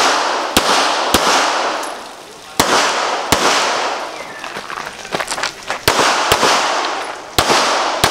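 Pistol shots fired rapidly during a practical shooting stage: about eight shots, mostly in quick pairs with pauses of a second or two between groups while the shooter moves, each shot followed by a fading echo.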